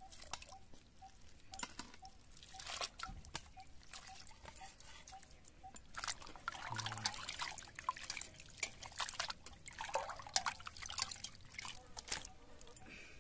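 Water splashing and sloshing in a steel bowl as hands wash and squeeze pieces of goat intestine, with irregular splashes throughout. Near the end the washed pieces are lifted out and water drips from them onto a plate.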